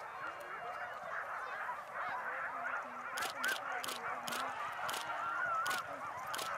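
Many sled dogs yelping and howling together in overlapping, wavering calls: the excited noise of dog teams straining to run at a race start. A run of sharp clicks starts about three seconds in.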